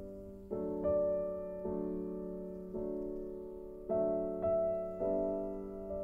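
Soft, slow piano music: chords struck about once a second, each ringing on and fading.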